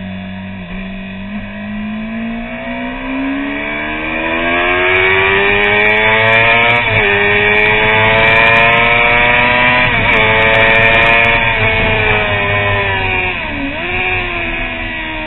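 Honda CBR600RR's inline-four engine under hard acceleration, the revs climbing and falling back with two upshifts about seven and ten seconds in. The revs then ease off gradually, with a quick dip and recovery near the end.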